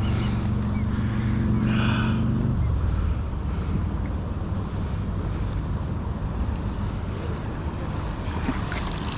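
A steady low engine hum that stops abruptly about two and a half seconds in, over wind on the microphone and water noise that continue.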